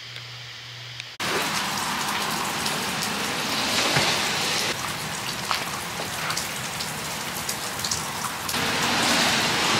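Steady hiss of falling water with scattered drop clicks, starting abruptly about a second in and shifting suddenly in level about five and eight and a half seconds in.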